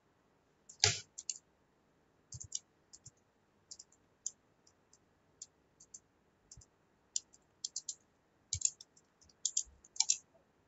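Typing on a computer keyboard: irregular key clicks in small clusters, with one louder knock about a second in.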